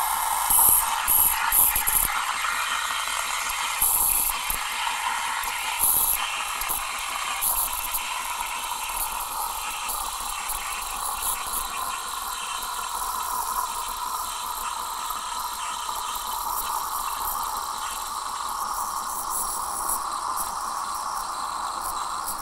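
Gaggia Babila steam wand steaming milk in a stainless steel frothing pitcher, its tip in the milk: a steady hiss, with irregular crackling and sputtering in the first several seconds that settles to a smoother hiss.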